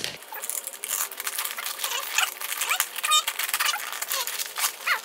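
Cutter knife scraping and slitting through the brown paper and packing tape of a parcel, with the paper wrapping crinkling and rustling as it is pulled apart, in a run of short scratches and crackles.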